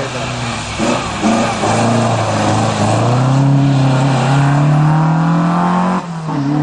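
Historic rally car's engine accelerating hard under full throttle. Its pitch climbs steadily between brief dips at gear changes, then drops suddenly near the end as the driver lifts off.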